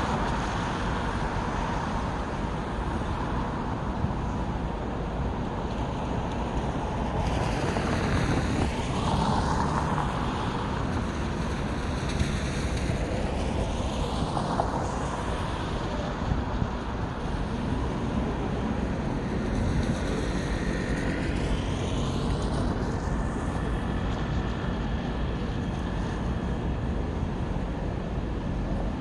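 Steady city road traffic, with vehicles passing; two go by closer about eight and twenty seconds in.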